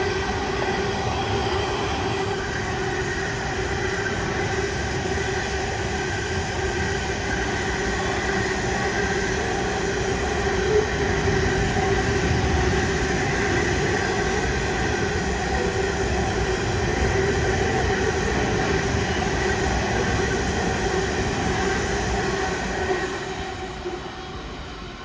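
A long rake of coal hopper wagons rolling past: a steady rumble and rattle of steel wheels on rail, with sustained ringing tones running through it. The sound fades away near the end as the last wagon goes by.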